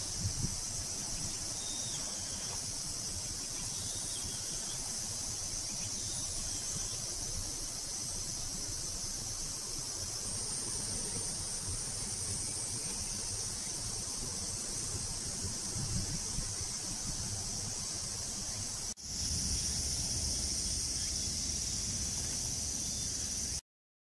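Steady, high-pitched chorus of summer insects. About 19 seconds in it breaks for an instant and comes back slightly louder, then cuts off suddenly near the end.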